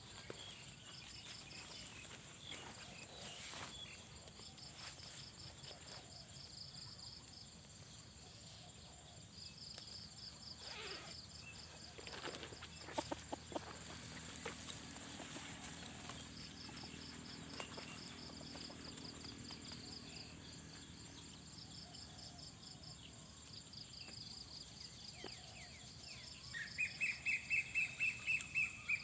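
Outdoor ambience with insects chirping in repeated short pulsed phrases over a steady high whine, and a few clicks about halfway through. Near the end a louder, rapid pulsing trill runs for a couple of seconds.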